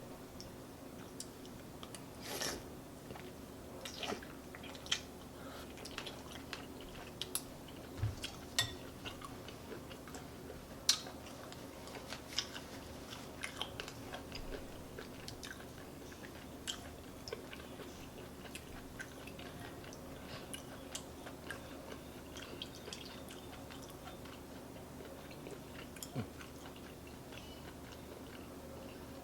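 Close-up chewing of chicken noodle soup with vegetables: wet mouth clicks and smacks, thicker in the first half and thinning out later.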